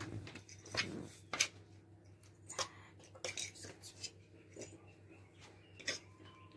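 A metal spoon scraping and clinking against an aluminium bowl while scooping minced meat filling, a scattering of short taps a second or so apart.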